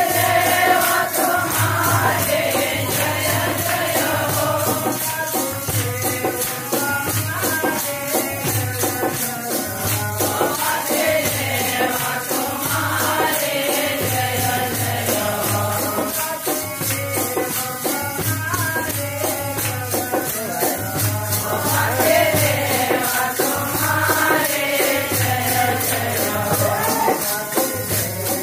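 Devotional bhajan kirtan: voices singing in long phrases with short gaps between them, over a steady rapid beat of jingling hand percussion and a repeating low drum pulse.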